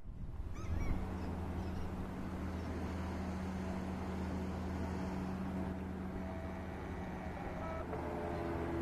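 Boat engine running steadily, a low droning hum. A bird gives a few short calls about a second in.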